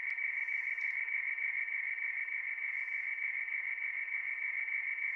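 Radioteletype (RTTY) weather broadcast on shortwave single sideband, heard through an Icom 7300 receiver. It is a steady frequency-shift warble of two close tones near 2 kHz, flipping rapidly between mark and space as characters are sent, over a faint band of receiver hiss.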